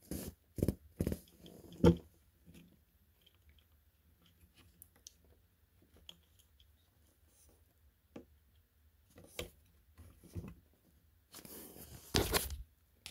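Plastic parts of a Transformers Studio Series Skipjack action figure clicking and scraping as it is handled and transformed by hand. A few sharp clicks in the first two seconds, scattered faint ticks, then a louder rustling scrape near the end.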